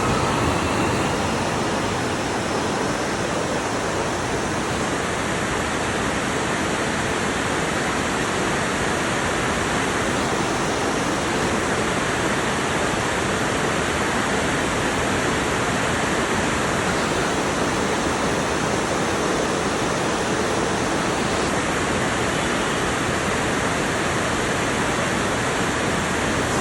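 Heavy rain pouring down in a steady, dense hiss that holds without a break.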